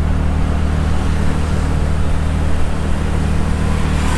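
TVS Ntorq 125 scooter's single-cylinder engine running steadily at a cruise of about 40 km/h, with a steady rush of wind and road noise over it.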